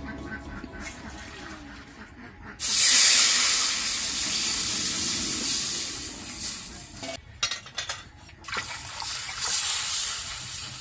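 Liquid poured from a steel bowl into a black iron wok of hot oil, hissing and sizzling sharply from about two and a half seconds in and slowly dying down. A few short clinks follow, then water poured from a steel pail splashes into the wok near the end.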